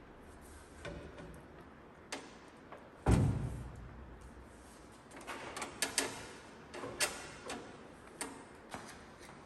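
Work noises: one heavy thump about three seconds in, then a run of sharp knocks and clicks, as of parts and tools being handled.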